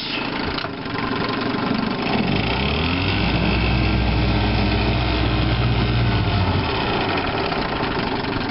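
Evinrude Fisherman 5.5 hp two-stroke outboard running in reverse gear. About two seconds in it revs up, holds there, then settles back down near the end.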